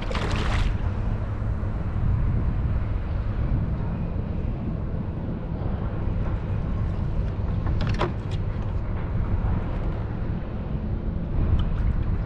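Steady low wind rumble on the microphone with water lapping at a kayak's hull, a short hissing burst right at the start and a faint click about eight seconds in.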